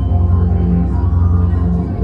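Live band music dominated by a heavy, low bass line, with the notes changing every fraction of a second.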